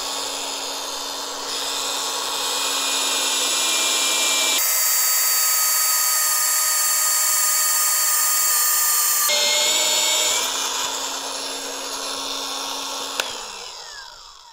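Milwaukee M18 cordless magnetic drill running a twist drill bit horizontally through a steel column, the motor whining steadily as the bit cuts and chips curl off. It is loudest through the middle of the cut, and near the end the motor winds down with a falling pitch.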